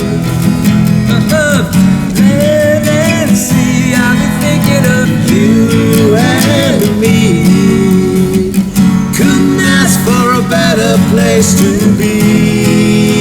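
Acoustic guitar strummed in a steady rhythm, with a wordless melody line gliding over it.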